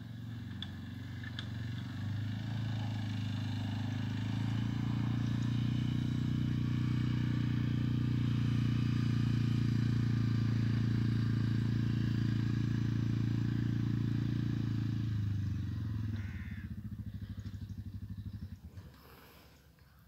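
Quad bike (ATV) engine running steadily as it drives across grass, growing louder as it approaches. It drops off suddenly about sixteen seconds in and fades away near the end.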